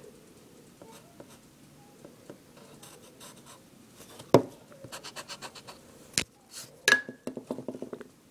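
A pencil being sharpened in a pencil sharpener: bursts of rapid, rhythmic scraping strokes starting about three seconds in, broken by a few sharp clicks, the loudest about four seconds in.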